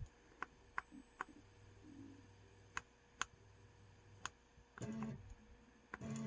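Scattered sharp clicks, then a brief burst from the CNC's X-Y axis drive motors about five seconds in, and the motors start running with a steady multi-tone hum near the end.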